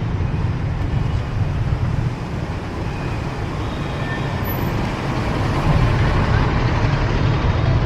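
Busy city street traffic, mostly motorbikes and scooters running past in a steady din that grows louder about five and a half seconds in.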